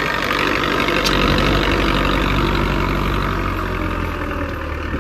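Belarus 510 tractor's diesel engine running steadily under load while it pulls a disc harrow through tilled soil.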